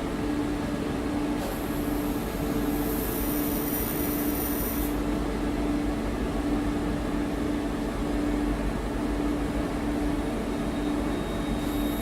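Steady machinery hum over a noisy rumble, with a mid-pitched tone pulsing on and off and a high whine coming in about a second and a half in, dropping out about five seconds in and returning near the end.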